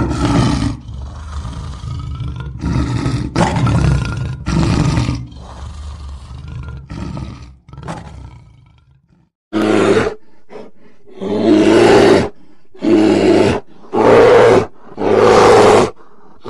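A lion roaring in a series of roars that grow shorter and fainter and die away about nine seconds in. Then a brown bear growls in a string of loud roaring growls, about one a second.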